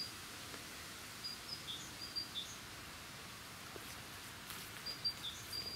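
A bird chirping short high notes in two brief runs, about a second in and again near the end, over faint outdoor background noise.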